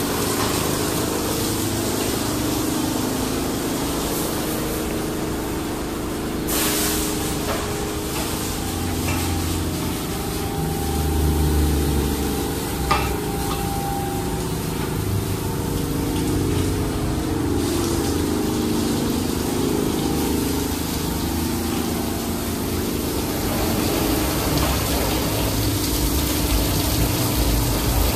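Water spraying from the nozzles of an NCS/Ryko Radius touchless car wash and raining onto a car, over the steady hum of the wash's pump machinery. A short sharp knock stands out about halfway through.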